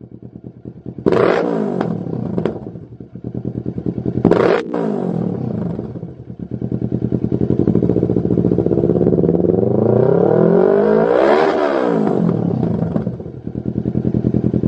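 Kawasaki Z650 parallel-twin engine running through a Lextek YP4 aftermarket silencer, with the bike stationary. The throttle is blipped sharply twice, about one and about four seconds in, then a longer rev builds over several seconds and drops back to idle near the end.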